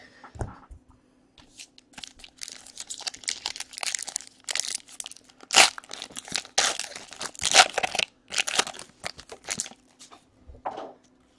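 Hands tearing open a Panini Excalibur basketball card pack and crinkling its wrapper. The rustling and ripping comes in irregular bursts for several seconds and dies away near the end.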